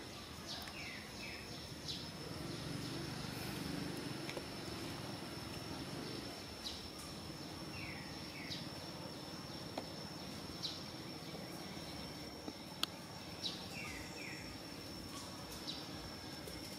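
Steady high-pitched insect drone, with a bird calling a pair of short falling notes three times and a few sharp ticks.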